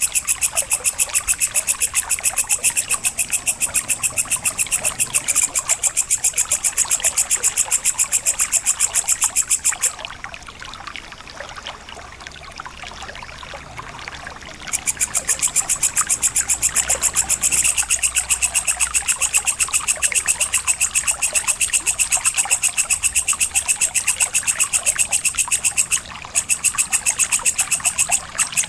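A singing insect stridulating in a fast, even run of raspy ticks. The ticking stops for about five seconds midway, and briefly again near the end.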